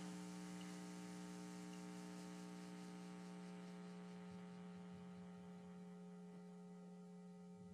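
Faint, steady electrical hum: one low tone with a ladder of evenly spaced overtones, easing slightly toward the end.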